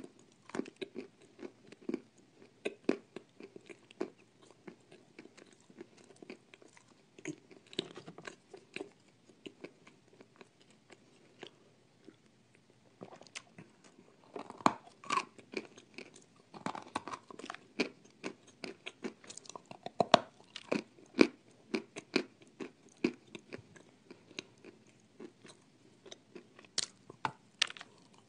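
Close-miked biting and chewing of hard, dry lumps: sharp crunches and chewing noises, sparse for a few seconds around the middle, then dense crunching through the second half.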